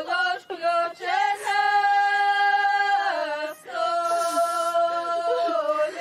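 Voices singing a cappella: slow, long held notes, about two sustained phrases, each gliding to its next pitch, with a brief break in between.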